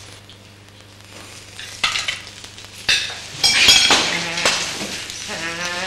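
Plates, glasses and cutlery clattering on a restaurant table, with a few knocks and then a loud burst of clinking and crashing about three and a half seconds in; a voice starts just before the end.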